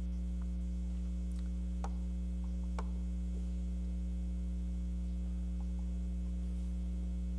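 Steady low electrical mains hum, with a couple of faint clicks about two and three seconds in.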